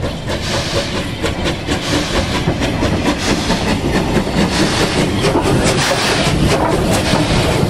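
Unrebuilt Bulleid Battle of Britain class steam locomotive passing close by at speed, its steam exhaust and wheels clattering over the rail joints in quick repeated clicks. It grows steadily louder as it comes alongside.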